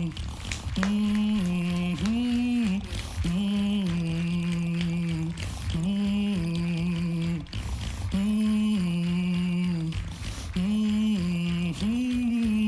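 Live solo beatboxing through a microphone: a low hummed phrase stepping between two pitches, repeated about every one and a half seconds, with sharp clicks and snare-like hits between the phrases.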